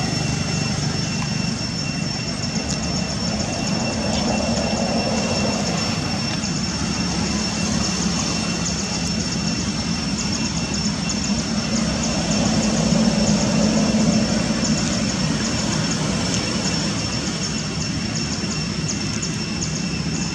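Steady low rumble with a thin, steady high-pitched whine over it, swelling slightly about two-thirds of the way through.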